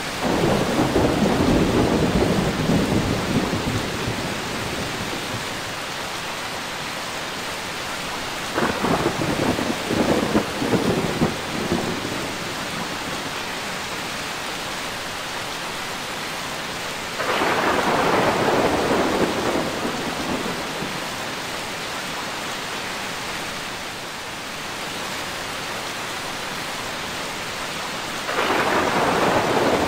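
Steady rain falling, with thunder rolling in four times: a rumble at the start, a crackling peal about nine seconds in, another rumble about seventeen seconds in and one more near the end, each fading over a few seconds.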